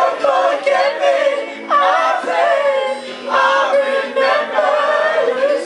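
Voices singing wordlessly together, wavering, sliding notes in phrases of a second or two with short breaks between.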